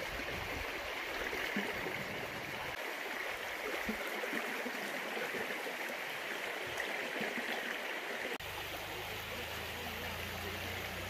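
Shallow stream flowing over stones, a steady even rush of water. Near the end a low steady hum comes in beneath it.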